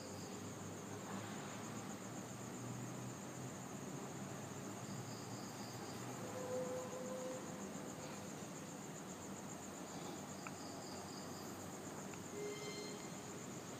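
Steady high-pitched pulsing trill of insects such as crickets, with a few faint short tones now and then.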